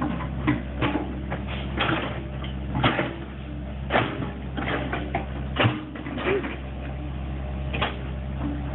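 Hydraulic excavator's diesel engine running steadily, with irregular sharp knocks and clanks about once or twice a second.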